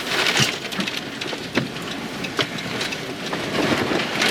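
Rain drumming on a car's roof and glass, heard from inside, with several separate sharp knocks of hailstones striking the body.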